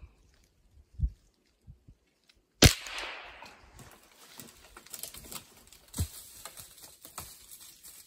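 A single loud, sharp gunshot about two and a half seconds in, ringing off for about a second, with a smaller sharp knock near six seconds and a soft thump about a second in.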